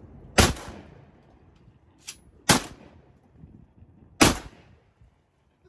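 Three shotgun shots fired over the water, about two seconds apart, with a fainter sharp click just before the second shot.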